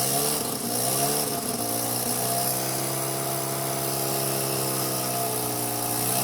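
Mazda RX-7 FC3S's freshly rebuilt 13B twin-rotor turbo engine running just after starting. The revs waver for the first couple of seconds, then settle into a steady idle.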